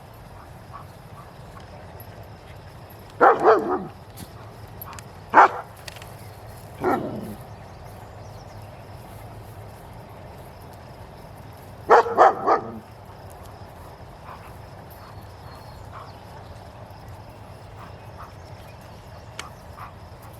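Dog barking in short bouts: two barks about three seconds in, single barks a little later, then three quick barks around the middle.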